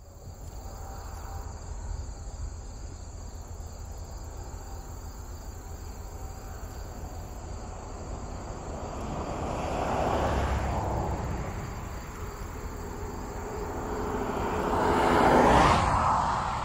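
Crickets and other insects chirping steadily over a low, distant rumble. Two louder rushing swells build and fade, one about ten seconds in and a louder one near the end.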